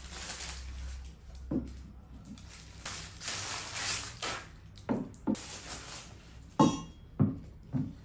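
Plastic wrapping rustling as ceramic vases are unwrapped, with a series of short knocks as the vases are set down on a hard table top, the loudest and most frequent in the last couple of seconds.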